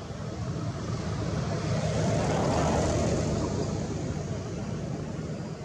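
A vehicle passing by, its noise swelling to a peak about halfway through and then fading away over a steady low rumble.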